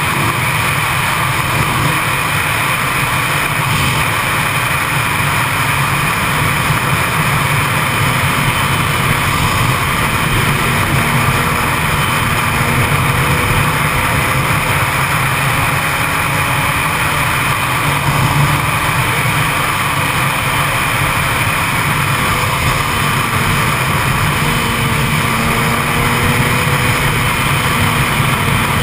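Yamaha YZF-R6 sportbike's inline-four engine running at high speed, mostly buried under a steady rush of wind on the microphone. The engine note climbs slowly now and then.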